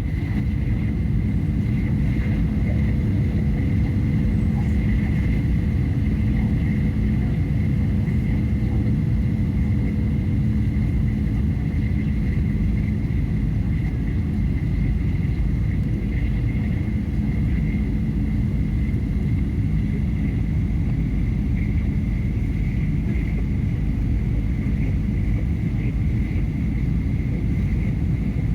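Cabin noise of a Boeing 737 heard from inside the passenger cabin during landing: a steady rumble of engines and airflow with a constant low hum, unchanging throughout.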